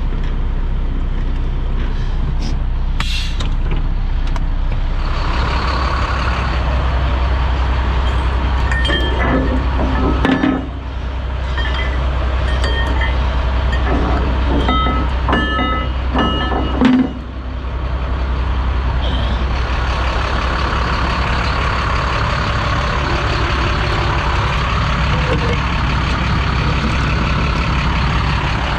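Heavy diesel semi-truck engine idling steadily, with a run of clicks and short high beeps in the middle.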